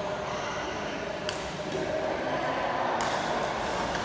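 Badminton rally: two sharp racket strikes on the shuttlecock, about a second and a half apart, over voices in the hall.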